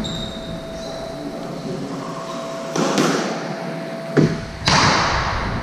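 Squash being played on a wooden court: a high shoe squeak at the start, then a sharp crack of the ball about four seconds in, followed half a second later by a louder burst of noise. A faint steady hum runs underneath.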